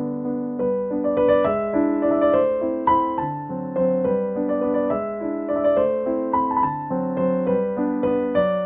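Background music: a solo piano piece, a melody of struck notes over lower held notes.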